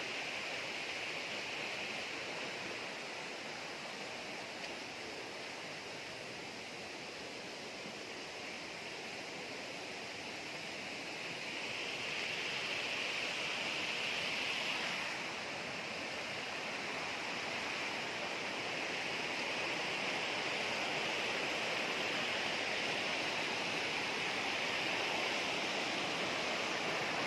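A hill stream rushing, a steady wash of water noise that grows louder a little before halfway through and stays up.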